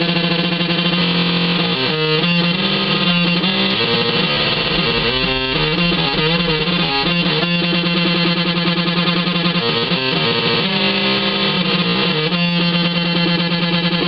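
Electric guitar played through a breadboarded Schumann Two Face fuzz circuit: long, heavily distorted sustained notes that change pitch a few times.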